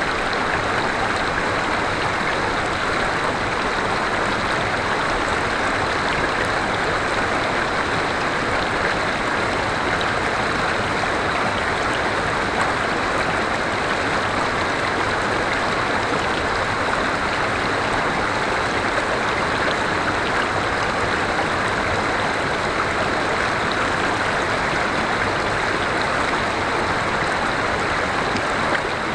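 Forest river water flowing and rushing steadily over rocks.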